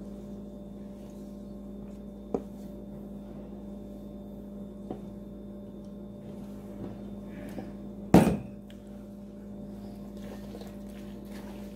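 Spatula and steel bowls knocking against each other as a dressing is scraped out onto pasta salad: a few light taps and one loud knock about eight seconds in, over a steady hum.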